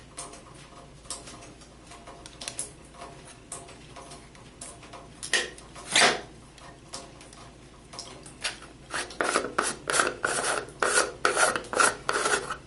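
Threaded plastic battery-compartment cap of a camping lantern being unscrewed by hand: scattered scrapes and knocks, then a fast run of rasping thread strokes over the last few seconds.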